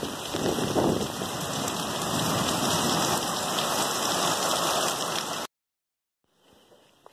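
Heavy rain pouring down on a street and rooftops, a loud steady hiss that cuts off suddenly about five and a half seconds in, leaving near silence.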